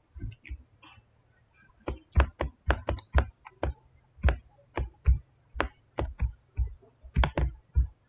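Computer mouse clicking repeatedly, about twenty sharp clicks at an irregular pace, some in quick runs of two or three.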